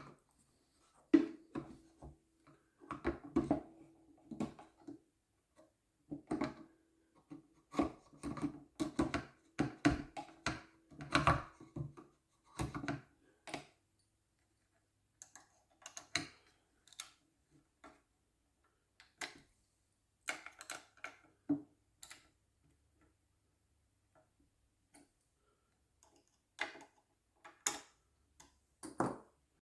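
Irregular clicks and knocks of hands and a screwdriver working on a wooden cuckoo clock's case and fittings, busy for the first dozen seconds and then sparse.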